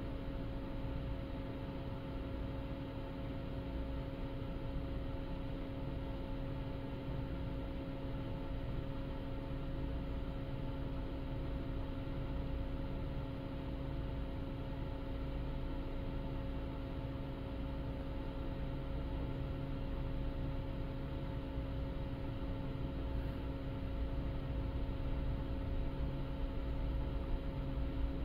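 Steady drone of a car ferry's engines and on-board machinery heard from aboard the ship: a low rumble with a constant hum of a few fixed tones, growing slightly louder near the end.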